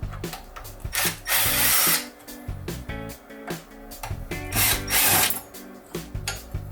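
Two short bursts from a power tool, each under a second long, one about a second in and one near the end, over background music with a steady beat.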